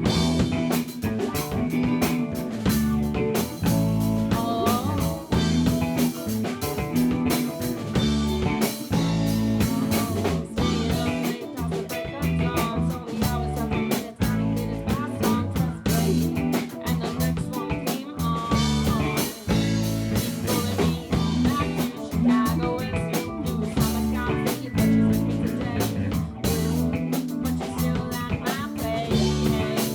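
Rock band playing with a steady beat: drum kit, guitar and a heavy bass line.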